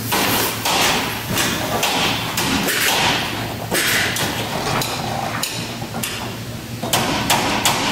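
Irregular hammer blows and knocks on steel over a continuous din of shop noise, as in a steel fabrication shop.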